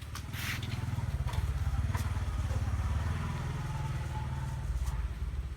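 A small engine running close by: a steady low rumble with rapid even pulsing that swells over the first second or two and then holds.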